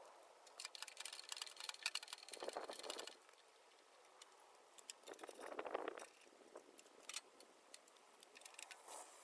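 Faint metallic clicking and clinking of a hand wrench working the bolts that hold a mini excavator's canopy (ROPS), densest in the first few seconds, with two brief duller scuffing sounds.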